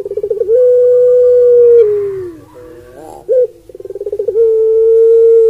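Puter pelung, a Barbary dove (Streptopelia risoria), cooing loudly. Twice, a quick stuttering run of notes swells into one long, held coo that slides down in pitch at the end, with a couple of short coo notes between the two.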